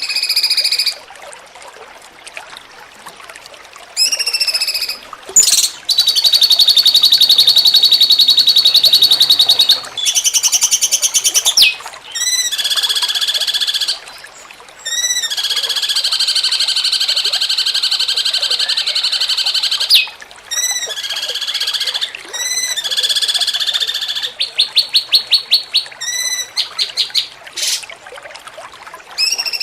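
Cucak cungkok singing a 'jengking munting' song: sharp curved whistled notes alternating with long, fast buzzy rattling trills, repeated phrase after phrase with short pauses between.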